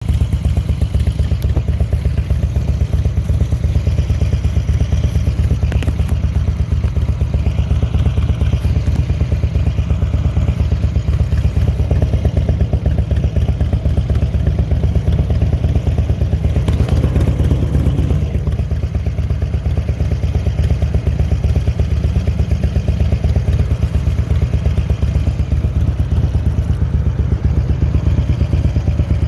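2003 Harley-Davidson Road King's air-cooled V-twin engine idling steadily, with a squeak during idle whose cause the owner can't trace.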